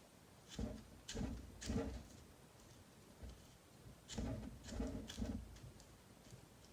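Plastic RC buggy transmission case being handled and turned in the hands: short clicks and rubbing of plastic parts in two clusters, about a second in and again about four seconds in.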